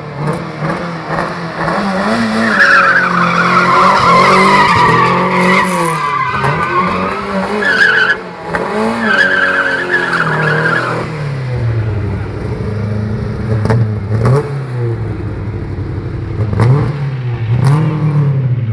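Lada saloon's engine revving up and down hard as it drifts, with its tyres squealing on tarmac in a long wavering screech from about two seconds in, cutting off around eleven seconds; the engine keeps revving and easing after that.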